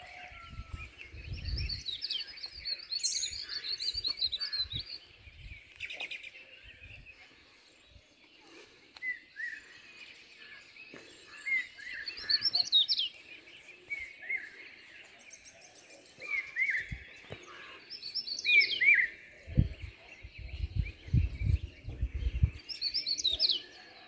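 Wild birds calling and chirping over a steady background chorus, with short falling chirps coming every second or two from about nine seconds in. Bursts of low rumble near the start and in the last few seconds.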